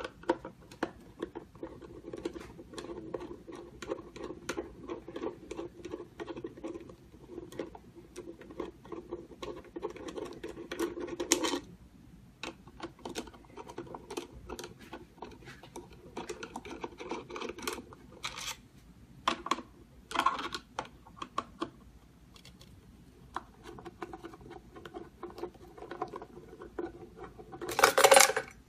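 Keypad door lock being taken apart by hand: many small clicks and rattles of metal lock parts and screws. A stretch of continuous rapid ticking and scraping runs for the first eleven seconds or so, and a louder clatter comes near the end.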